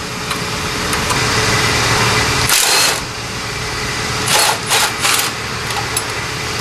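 Cordless impact wrench running on the transmission bell housing bolts, a steady hammering run with short sharper bursts about two and a half seconds in and three more around four to five seconds in, as the bolts break loose.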